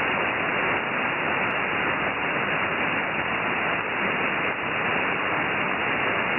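Steady shortwave static hissing from an Elad FDM DUO receiver tuned to an idle upper-sideband aeronautical channel, 5598 kHz, between voice transmissions; the hiss is cut off above about 3 kHz by the receiver's sideband filter.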